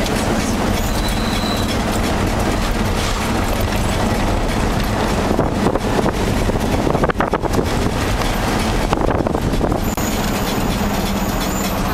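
Steady running noise of a moving ride vehicle: a constant rumble with a low hum, and a quick run of clicks and rattles about seven seconds in.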